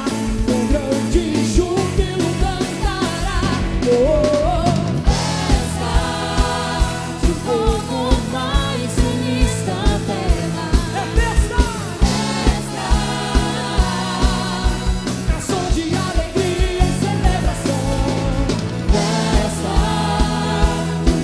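Gospel worship music: a band with a steady drum beat and sustained chords, with singing voices over it.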